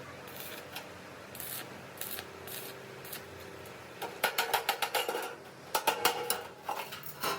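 Quick runs of sharp metallic knocks and clinks, several a second, starting about four seconds in after a few seconds of low workshop background.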